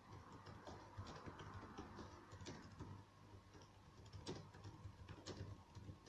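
Near silence with faint, irregular taps and clicks of typing on a smartphone, over a low steady room hum.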